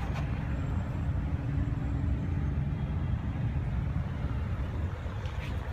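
Steady low rumble with no words, with a faint click right at the start and another near the end.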